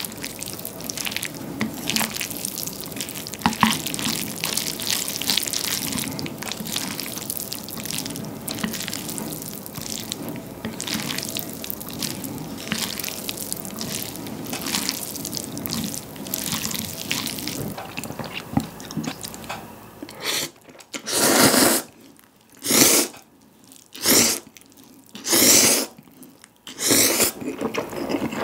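Wooden chopsticks stirring and tossing stir-fried instant noodles in a thin Sriracha sauce in a ceramic bowl: a continuous wet, sticky squelching with small clicks of the chopsticks against the bowl. Near the end come about five loud slurps of noodles, a second or so apart.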